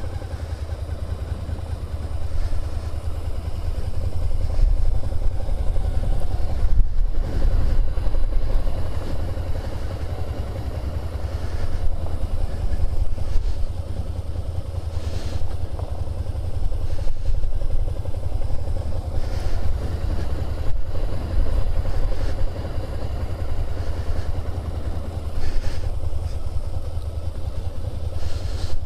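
Suzuki SVF650 Gladius's 645 cc V-twin engine running at low revs during slow-speed cone riding, heard through a microphone inside the rider's helmet, its level rising and falling gently. A few short knocks are heard along the way.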